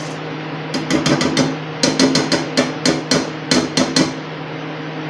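An egg being beaten with milk in a bowl: a utensil clicks rapidly against the side of the bowl in quick runs of strokes for about three seconds, then stops.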